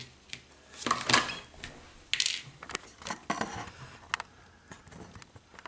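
Handling noise: a few short rustling, clattering bursts and scattered light clicks as a small plastic RC car is picked up and set on a tabletop, with an arm moving close to the microphone.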